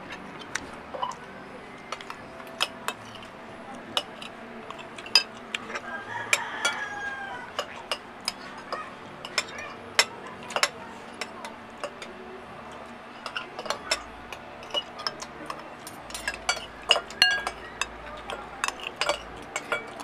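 Spoons and forks clinking and tapping against plates while eating: irregular sharp clinks, a few at a time, some much louder than others.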